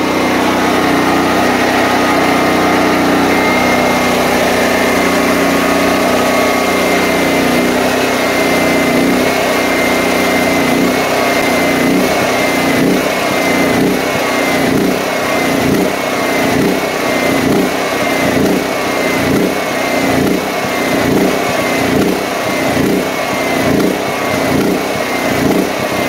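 DuroMax XP13000EH portable generator's engine running, steady at first, then from about ten seconds in surging: revving up and down in a regular rhythm a bit more than once a second. The surging is the sign of a carburettor starved of fuel as the fuel line runs dry.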